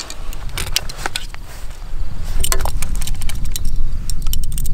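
Wind buffeting the microphone as a low rumble, which grows louder about two seconds in. Over it come irregular crunching footsteps on dry, crusty ground and light clicking and rattling of carried archery gear.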